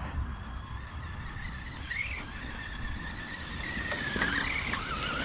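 Arrma Kraton 4S V2 RC truck's brushless electric motor whining as the truck runs at speed. The pitch rises briefly about two seconds in, holds steady, then dips and steps down near the end as the throttle changes, over a low rumble.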